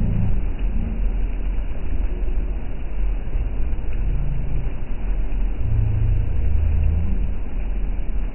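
Steady low rumble of an amphibious tour bus's engine running as it cruises on the water, with its wake rushing along the side.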